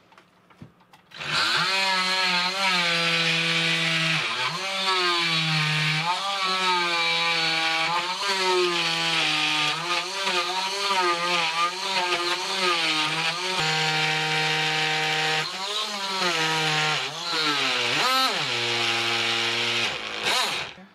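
Cordless oscillating multi-tool with a scraper blade buzzing as it scrapes soft, under-cured epoxy off maple floorboards; its pitch dips and recovers again and again as the blade bites and eases off. It starts about a second in and stops just before the end.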